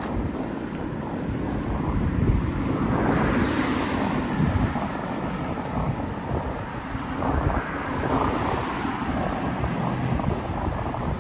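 Wind buffeting the microphone over the noise of road traffic passing close by. The traffic noise swells around three to four seconds in.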